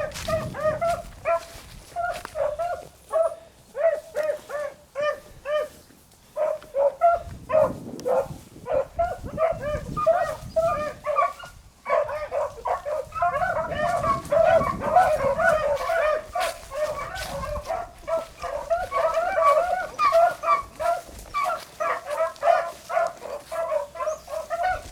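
A pack of beagles baying on a rabbit's trail: many short, overlapping cries in a steady chorus that grows denser about halfway through.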